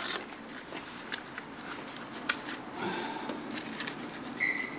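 Scattered small clicks and clinks of hand tools being picked up and handled on a workbench, with a brief high squeak near the end.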